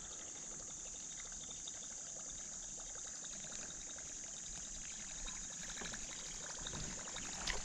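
Quiet outdoor background on a pond: a steady high-pitched hiss with faint trickling of water and a few small ticks.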